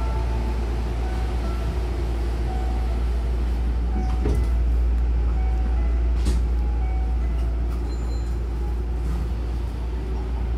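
A Hankyu train's sliding passenger doors slide shut, with a knock about four seconds in and another about two seconds later, over the steady low rumble of the train standing at the platform.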